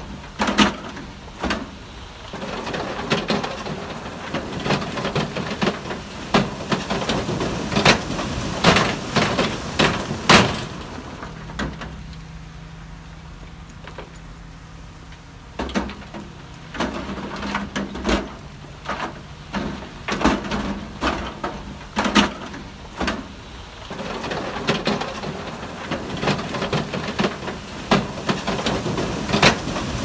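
Heavy earthmoving machinery working: an engine running under a stream of irregular metallic clanks and knocks, which thin out for a few seconds about halfway through, leaving the engine hum.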